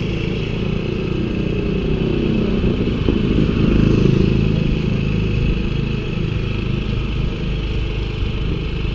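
Steady rush of wind and road noise on a handlebar-mounted camera while cycling, with the engine of a motorcycle a few metres ahead running underneath. It swells a little about four seconds in.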